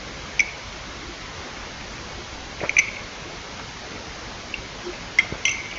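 Steady recording hiss with a few brief faint clicks.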